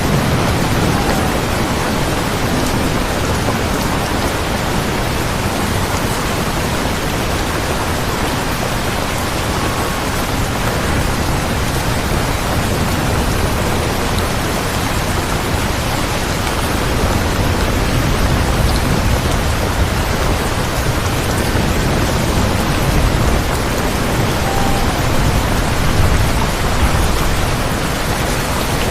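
Steady, dense rainfall, an even hiss of many drops, with low rumbling swells in the second half.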